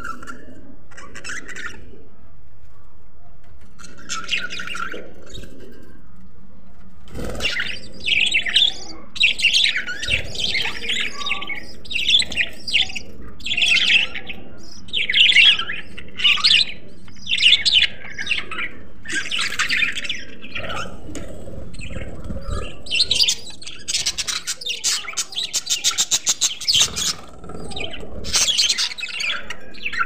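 A flock of caged budgerigars chirping and chattering: a few scattered calls at first, then from about seven seconds in a dense, overlapping chatter of high chirps, over a low steady hum.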